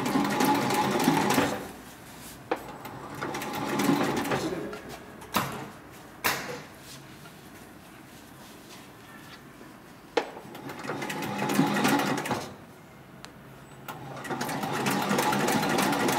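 Hightex 204-102 MD heavy-duty decorative-stitch sewing machine stitching through leather in four short runs, stopping and starting between them. A few sharp clicks fall in the pauses.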